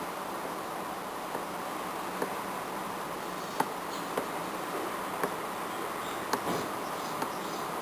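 Motorcycle running with a steady buzzing drone, broken by sharp, irregular clicks about once a second: the abnormal noise from around the front sprocket.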